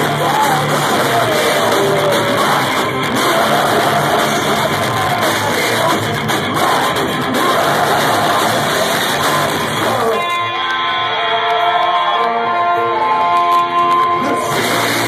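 Melodic hardcore punk band playing live, loud and distorted through a phone's microphone, with the crowd shouting along. About ten seconds in the full band and cymbals drop away, leaving a sparser passage of clear held notes, and the full band crashes back in at the very end.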